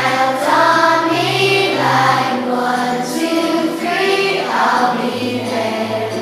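A large group of schoolchildren singing together as a choir, over steady low accompaniment notes.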